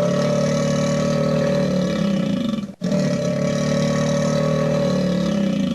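Vintage Hanna-Barbera cartoon sound effect, an engine-like droning motor sound, played twice in a row, each take holding steady and then sliding in pitch as it ends.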